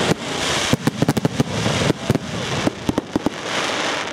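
Fireworks display: a rapid series of sharp bangs and crackles over a steady hiss.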